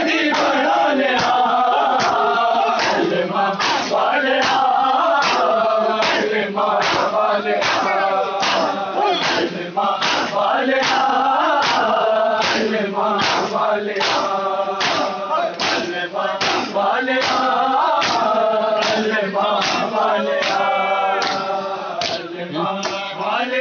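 Crowd of men chanting a nauha (Muharram lament) together, with matam: hands striking chests in unison in a steady beat, a little under two strokes a second.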